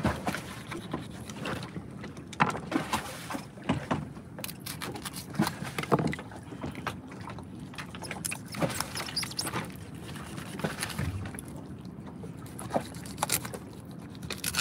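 Fillet knife cutting along the side of a small fish being filleted: scattered soft clicks and scrapes over a steady background hiss.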